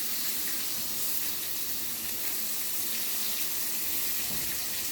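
Fish-fillet shish skewers sizzling steadily as they are seared on the gas stove.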